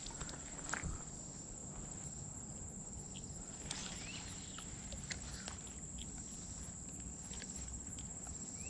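Steady high-pitched drone of insects, with scattered faint clicks and a couple of short chirps over it.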